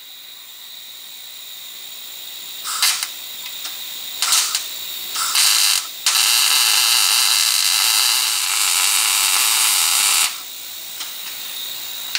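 Wire-feed welder arcing on steel while a patch is welded onto a car's front shock mount. Three short bursts of crackling hiss, then one steady run of about four seconds that stops sharply.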